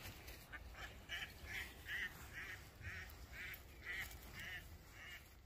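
A duck on the water quacking over and over, about two calls a second in a steady series.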